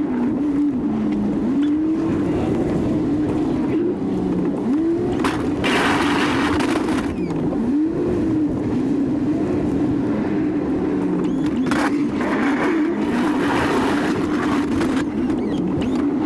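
Pickup truck engine running under a plow, its pitch dipping and rising again and again as the revs change, with a few bursts of rushing noise.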